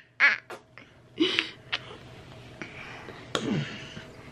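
A few short breathy puffs of a person's breath, with a couple of sharp clicks and, about three seconds in, a brief low falling voice sound.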